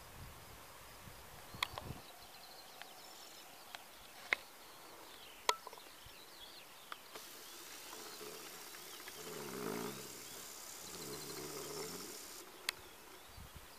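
Rural summer outdoor ambience: insects and small birds chirping, broken by a few isolated sharp clicks. Two low, drawn-out sounds come one after the other about two thirds of the way through.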